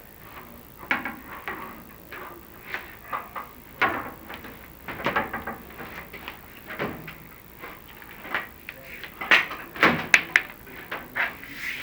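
Chimney inspection camera and its cable scraping and knocking against the masonry walls of a flue as it is worked down, in irregular bumps that come more often near the end.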